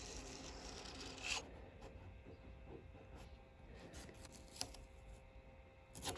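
Single-edge razor blade scraping along a masking-tape line on a fibreglassed surfboard: a dry rasping for about the first second and a half, then fainter scratches and a few light clicks. Near the end comes a short crackle as the masking tape is peeled up.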